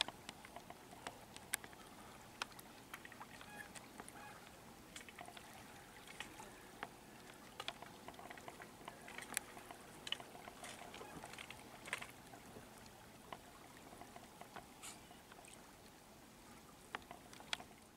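Faint ambience broken by scattered, irregular sharp clicks and ticks.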